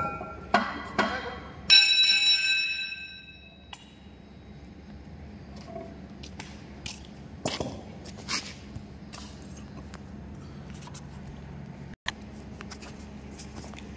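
Sledgehammer blows on the stripped cast-iron Cummins engine block, four sharp metal strikes in the first two seconds. The last and loudest rings out for about two seconds. Light scattered metal clinks and knocks follow as the block is handled.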